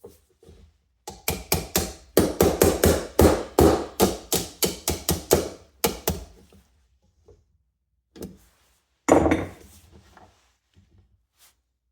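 A fast series of sharp knocks on a hard object, about four a second for some five seconds, then two separate knocks, the second the loudest with a short ring.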